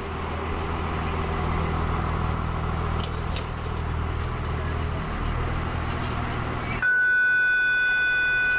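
Idling vehicle engine with a steady low rumble, then an abrupt cut about seven seconds in to a steady electronic tone: a school bell or buzzer sounding.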